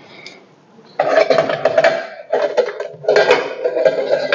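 Metal kitchenware (pots, bowls and utensils) clattering and being handled at a kitchen counter, in a few loud stretches with short breaks, starting about a second in.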